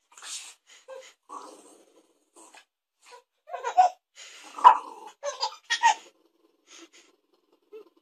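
A baby giggling in short bursts, the loudest between about three and a half and six seconds in, mixed with quick sniffing puffs from a small terrier nosing at the baby's face.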